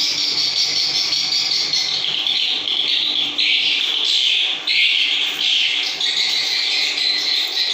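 Swiftlet calls, a dense, continuous chirping that changes pitch in short blocks.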